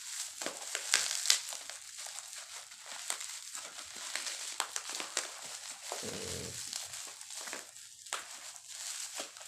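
Plastic packaging wrap crinkling and rustling as it is handled, with a few sharper crackles about a second in.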